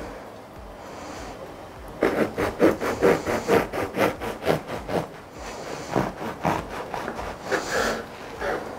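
Knife sawing through a crusty whole-grain loaf on a wooden cutting board, in quick back-and-forth strokes of about four a second. The strokes start about two seconds in, pause briefly, and resume near the end.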